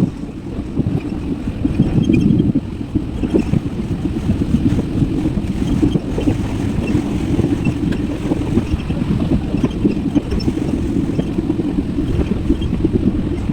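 Car driving through a storm: steady rumbling road and wind noise that swells and dips.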